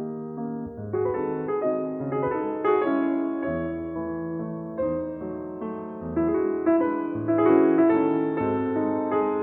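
Background piano music: a steady run of chords and melody notes, each struck and then fading.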